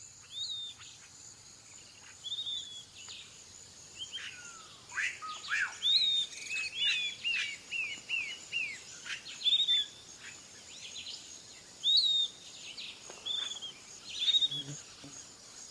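Several birds chirping and whistling in short, repeated calls, some sliding downward in pitch, over a steady high-pitched insect drone.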